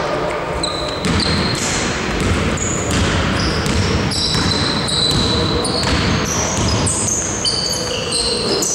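Basketball players' sneakers squeaking sharply on a sports-hall floor, many short squeaks one after another, mixed with knocks of the ball bouncing and running footsteps.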